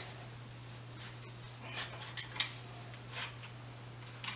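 Steel magazine tube of a Winchester 1886 lever-action rifle being worked out from under the barrel: a few faint metal scrapes and one sharp clink about two and a half seconds in, over a steady low hum.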